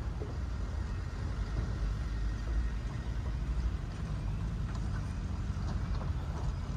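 Wind buffeting the microphone: a steady low rumble that flickers in strength, with a few faint ticks over it.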